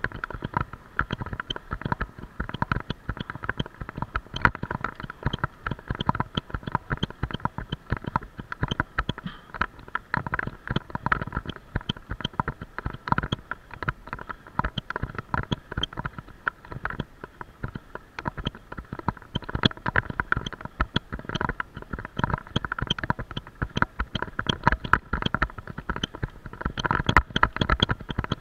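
Bicycle-mounted action camera rattling and clicking nonstop in its mount as the bike rides over rough asphalt, over a low rumble.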